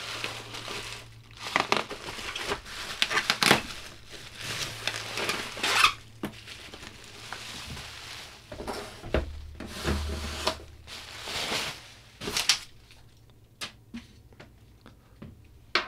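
Bubble wrap crinkling and rustling in irregular bursts as it is pulled off and away from a cardboard box, dying down near the end.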